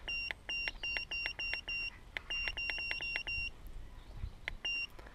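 Autel AutoLink AL319 OBD-II code reader beeping at each key press as its menu is scrolled: a rapid run of short, identical high beeps, about four a second, with a faint button click under each. The run breaks briefly about two seconds in, carries on for about another second, and a single beep comes near the end.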